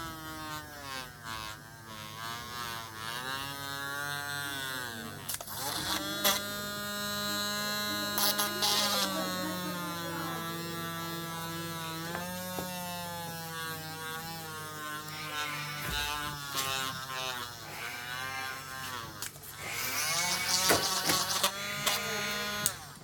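Mini rotary drill's small electric motor running, its whine gliding up and down in pitch, with a few short noisy bursts.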